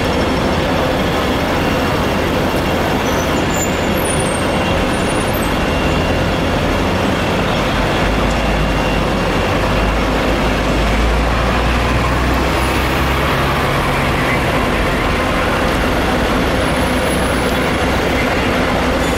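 Fire engines' diesel engines running steadily, with a heavier low engine rumble swelling about eight seconds in and easing off around fourteen seconds.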